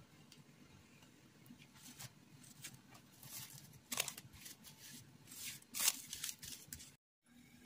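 Plastic cling film crinkling and rustling as it is pulled and stretched over a bowl. The crackles start about two seconds in and come in short bursts, the loudest near the middle and just before the end.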